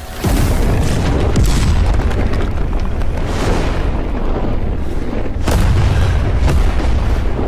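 Anime explosion sound effect: a loud, sustained blast heaviest in the low end that starts suddenly, with sharper hits about a second and a half in and again near the end.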